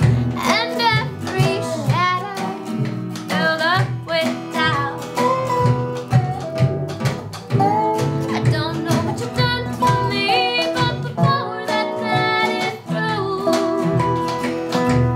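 Acoustic jug-band music: a steel-string acoustic guitar strumming and a mandolin playing, with a woman singing over them.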